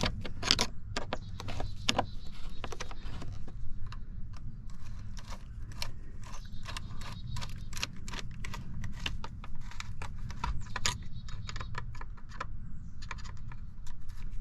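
Irregular metallic clicks and clinks, several a second, from a hand tool tightening the hose clamps on a diesel pickup's air filter housing. A low steady hum runs underneath.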